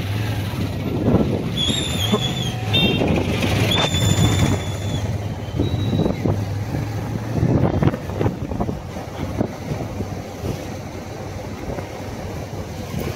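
Busy street sound of passing motor vehicles over a steady low hum, with high warbling whistle-like tones about two and four seconds in.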